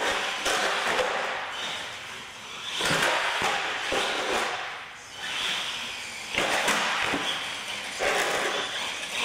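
Radio-controlled monster truck driving on a concrete floor: its drivetrain and big tyres surge and ease several times as the throttle is worked, with a few sharp knocks from the truck landing or bumping.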